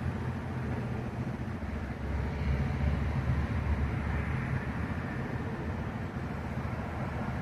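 A heavy engine running steadily with a low, throbbing note, growing louder about two seconds in and easing back a few seconds later.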